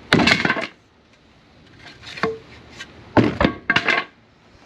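Wooden pieces clattering and knocking as they are handled and set down. There is a dense burst of knocks at the start, a single knock about two seconds in, and a longer run of knocks a second later.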